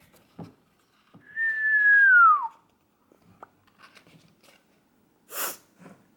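A single whistled note from a person, held briefly and then falling in pitch, lasting about a second. It is followed near the end by a short hiss.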